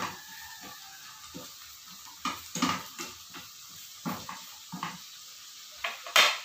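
Slotted spatula stirring vegetables in a frying pan over a low sizzle, with scattered scrapes and knocks against the pan and one louder knock near the end.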